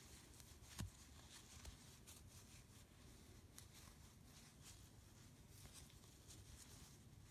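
Near silence with faint, irregular rustling from a crochet hook and yarn being worked, stitch by stitch. A short soft knock about a second in.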